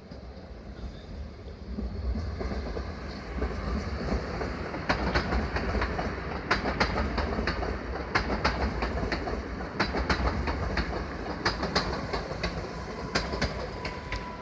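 Newag Impuls electric multiple unit running through the station, its wheels clacking over rail joints and points. The rumble gets louder about two seconds in, and the clacks come thick and irregular through the middle.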